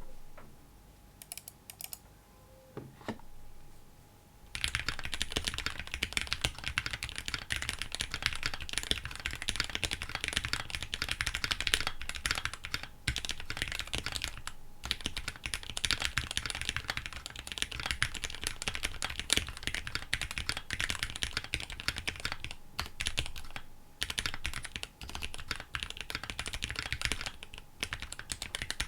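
Steady, fast typing on a KBDfans D65 mechanical keyboard with Gateron Black Ink v2 linear switches and EPBT 9009 PBT keycaps, a dense run of key clicks and bottom-outs. It starts about four and a half seconds in, after a few scattered key presses.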